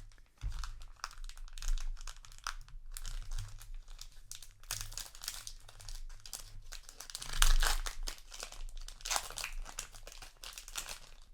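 Trading card booster pack wrapper being crinkled and torn open by hand: a run of irregular crackling and tearing, loudest about two-thirds of the way through.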